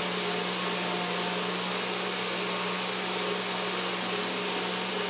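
A motor-driven appliance running steadily: an even noise with a low, unchanging hum.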